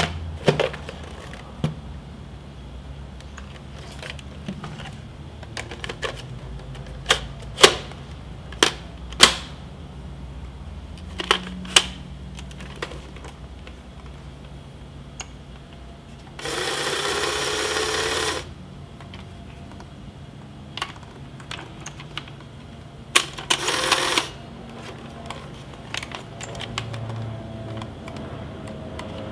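Plastic clicks and snaps as a film pack is loaded into a Polaroid OneStep 600 and the camera is handled. Past the middle the camera's motor runs for about two seconds, the whir of the dark slide being ejected once the film door shuts, and a shorter mechanical burst follows a few seconds later.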